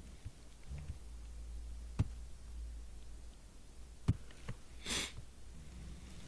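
Two sharp computer-mouse clicks about two seconds apart, then a short breathy hiss about five seconds in, over a low steady hum.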